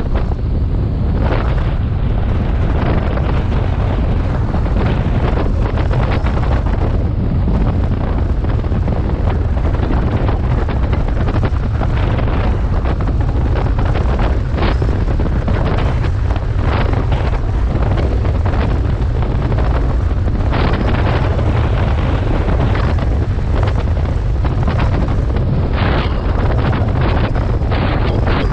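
Heavy wind rumble over the microphone of a BMW R 1250 GS motorcycle on the move, broken by frequent irregular crackles from gusts.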